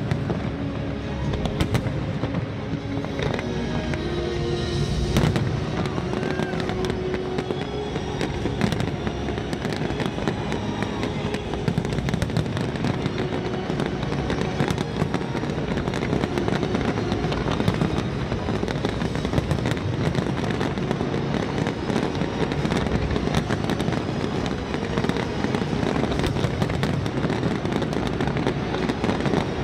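A large fireworks display going off in dense, rapid bangs and crackles with no pause, with music playing underneath.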